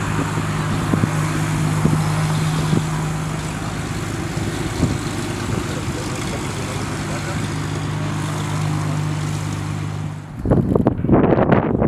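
Mooney M20R Ovation's six-cylinder Continental IO-550 engine and propeller running steadily at low taxi power, a constant engine drone. About ten seconds in the engine sound stops abruptly and is replaced by irregular gusting noise.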